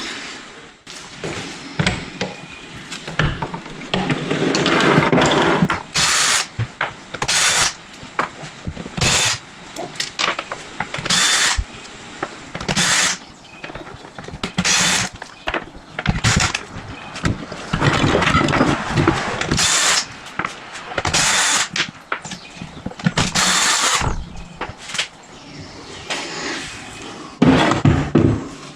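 Power tool spinning out the stator cover housing bolts of a 1996 Sea-Doo GTX engine in about ten short bursts, with a longer run about four to six seconds in and clatter of tools and parts between bursts.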